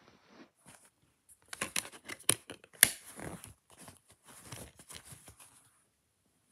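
Clear plastic DVD case being handled: a run of crackles and clicks, with one sharp click about halfway through.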